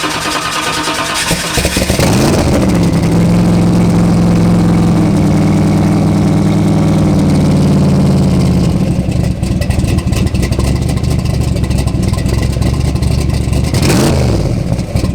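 Twin-turbocharged 632 cubic inch V8 of a custom 1964 Acadian running loudly at idle just after being started. The engine note shifts briefly about two seconds in and again near the end.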